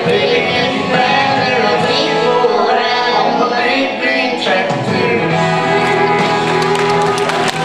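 A young boy singing a country song into a microphone over a backing track.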